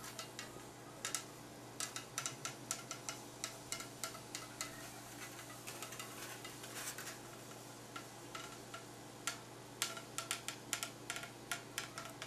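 Hand-held hot-wire foam cutter drawn through a block of Styrodur extruded polystyrene along plywood templates, giving irregular sharp ticks and clicks, more frequent near the end, over a steady low hum.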